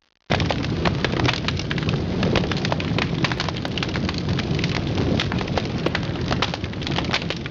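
Crackling fire sound effect: a steady rushing rumble dotted with many sharp pops and crackles. It starts suddenly about a quarter second in.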